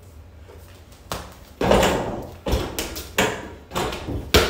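Thuds and knocks of a mini basketball dunk on an over-the-door hoop: the ball, rim and backboard bang against the door. It starts about a second in, is loudest just after, and ends in a sharp knock near the end.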